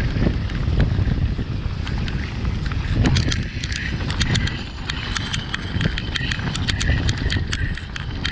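Mountain bike riding down a leaf-covered dirt singletrack: steady tyre rumble over dirt and leaves, with many quick clicks and rattles from the bike jolting over bumps, and wind noise on the microphone.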